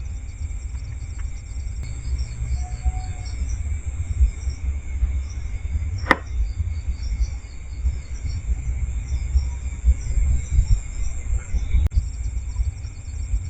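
Insects chirping steadily in high, pulsing trills over a loud, uneven low rumble, with one sharp click about six seconds in.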